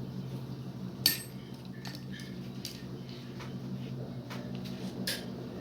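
Short clicks and taps of small objects being handled on a workbench, the sharpest about a second in and another near the end, over a steady low hum.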